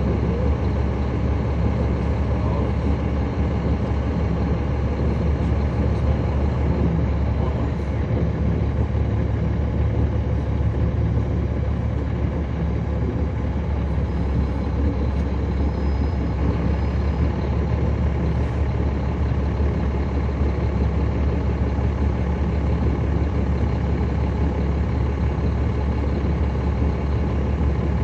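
Caterpillar C13 ACERT inline-six diesel of a 2009 NABI 40-SFW transit bus running at a steady, even note, heard from inside the bus.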